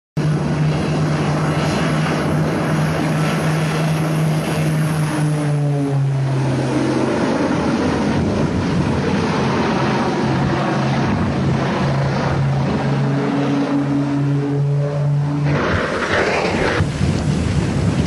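Airbus A320 jet engines running loud during a low pass, the engine tone dropping in pitch about six seconds in as the aircraft goes by. Near the end the tones cut off and a brighter, rougher burst of noise takes over.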